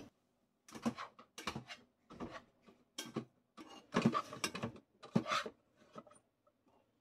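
Rice paddle scooping cooked rice out of a Panasonic rice cooker's inner pot: a string of short, irregular scrapes and taps against the pot.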